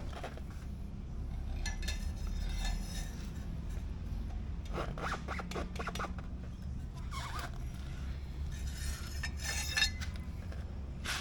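Metal parts and hand tools being handled during motorcycle rear brake work: scattered scraping and rubbing with light metallic clinks, and a sharp knock near the end. A steady low hum runs underneath.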